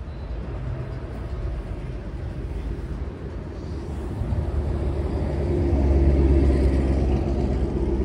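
Street traffic: a low rumble of car engines and tyres on the road, with one vehicle's engine hum growing louder about halfway through.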